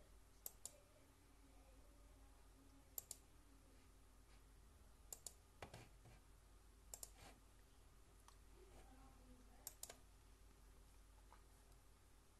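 Faint sharp clicks coming in pairs: five double clicks a couple of seconds apart, over near-silent room tone.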